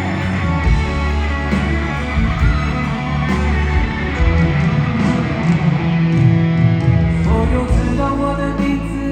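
Live rock band playing an instrumental break, guitar to the fore over bass and drums.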